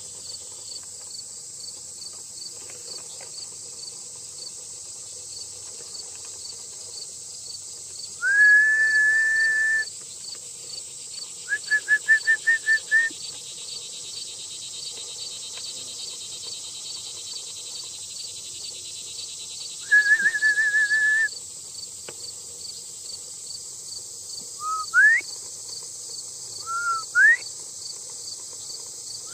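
Sheepdog handler's shepherd's whistle giving commands: a long held note, a quick run of about eight short pips, another long held note, then a few short rising whistles near the end. Insects chirp steadily underneath.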